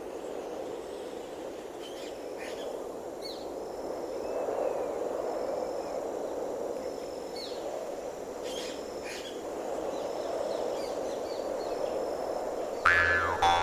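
Outdoor nature soundscape: scattered short bird chirps and downward whistles over a steady rushing background. Just before the end, music comes in suddenly and loudly with sliding tones.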